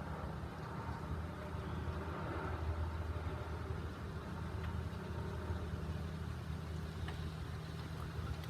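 Rain falling steadily on a roof, heard as a constant noise with a low rumble underneath.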